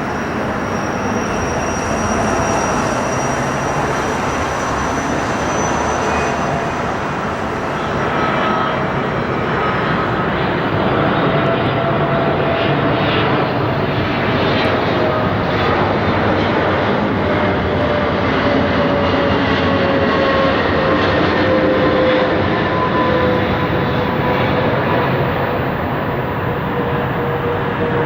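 Boeing 777 twin-jet airliner's engines as it flies past, a steady loud jet noise carrying whining tones that slowly fall in pitch.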